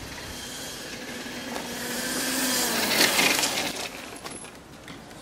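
Zero XU electric motorcycle riding up and passing close by: a quiet electric motor whine with tyre hiss, growing to a peak about three seconds in and then fading as it goes away.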